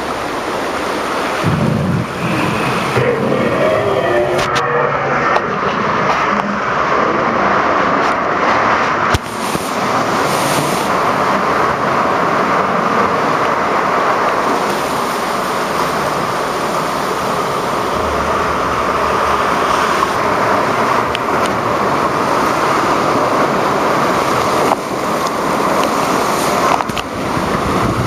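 Water rushing and churning through the channel of a river rapids raft ride, heard from aboard the raft as a loud, steady wash.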